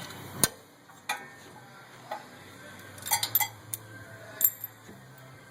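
Metal clinks and knocks as a brake caliper is fitted back over the brake rotor: several separate sharp clicks, with a quick cluster of them about three seconds in.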